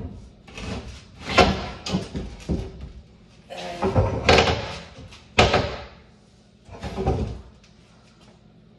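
A series of knocks and bangs, about five in seven seconds, some with a short ring after them.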